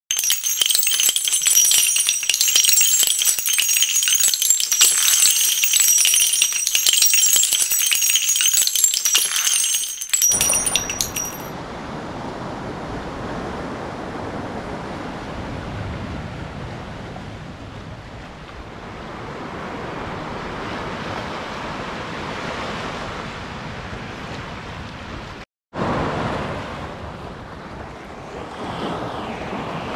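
A bright jingling rattle with clicks and ringing high tones for about the first ten seconds. Then a steady rush of surf, waves washing on a beach, broken by a moment of silence near the end.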